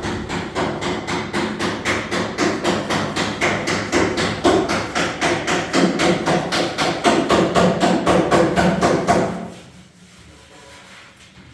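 Fast, even knocking, about five or six strikes a second, that stops suddenly about nine seconds in.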